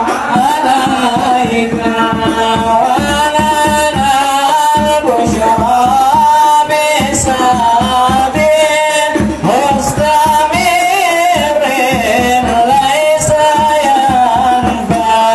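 A man singing a sholawat (devotional Islamic song praising the Prophet) in a melismatic, gliding melody into an amplified microphone, accompanied by hand-struck frame drums and a large drum beating a steady, quick rhythm.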